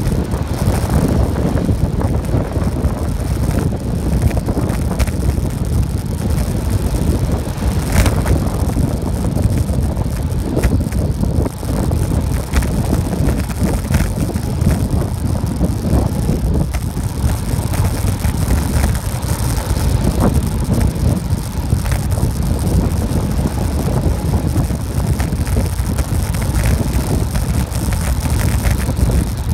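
Wind buffeting the microphone during a fast downhill ride, over the rolling noise of a tyre on asphalt. Scattered light clicks and knocks run through it, with one sharper click about eight seconds in.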